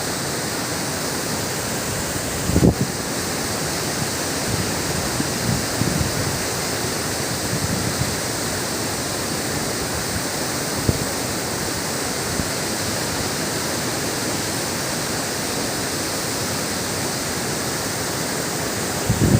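Waterfall rushing, a steady, dense roar of falling water. A few brief low thumps break through it, the strongest about two and a half seconds in.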